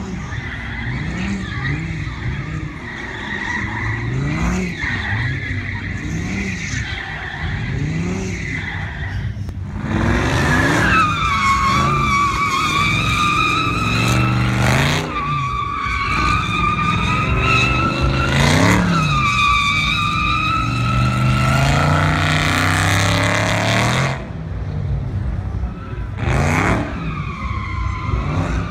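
Dodge V8 engines revving hard, their pitch rising and falling repeatedly. From about ten seconds in, tires squeal loudly in long, sustained wavering squeals over the engines, easing off near the end with one more short squeal.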